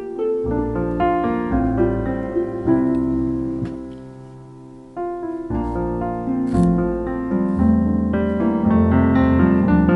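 Background piano music, a gentle melody over low chords, with a pause and a new phrase about halfway through.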